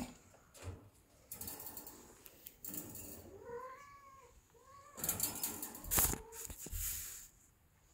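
Ragdoll cat giving two short meows about halfway through, among stretches of rustling and scuffling noise that is loudest about six seconds in.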